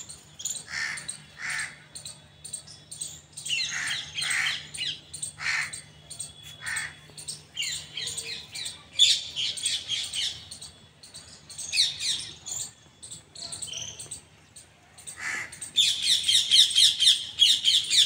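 Several birds calling, with scattered short calls and squawks. Near the end the calls turn into a fast, dense chattering, louder than anything before it. A faint steady low hum lies underneath.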